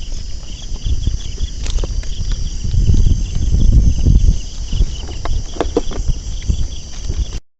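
Insects trilling steadily in a high, even band, over heavy low rumbling and a few sharp knocks close to the microphone. All of it cuts off abruptly near the end.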